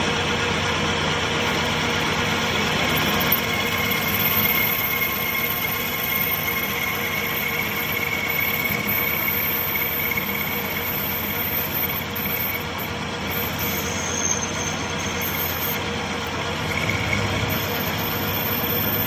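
Metal lathe running steadily, a continuous machine hum with a thin high whine that grows about four seconds in and fades again.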